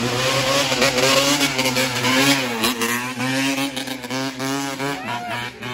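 Dirt bike engine running at high revs, holding a steady pitch, dipping about halfway through, then revving back up with a wavering pitch.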